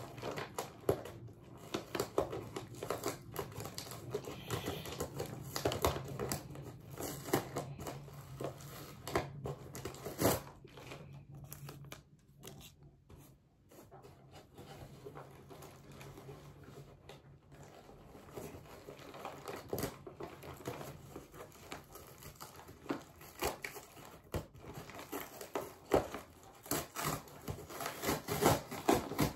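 Shipping packaging being crumpled and torn open by hand: irregular crinkling, crackling and tearing, easing off for a moment about halfway through and getting busier again near the end.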